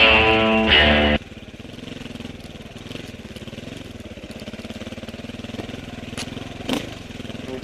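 Guitar music cuts off about a second in, leaving an off-road vehicle's engine running at low speed on a wooded trail, with a sharp knock near the end.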